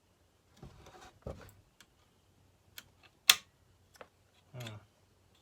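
Scattered light clicks and rustling of hands working a chainsaw's throttle linkage and small metal parts, with one sharp, loud click a little past the middle.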